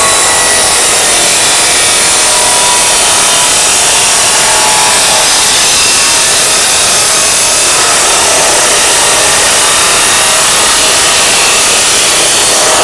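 Osaka 2,300 W abrasive cut-off saw with a 355 mm wheel grinding steadily through 48 mm square steel box tubing. The wheel's loud, high-pitched grinding in the steel runs without a break through the cut.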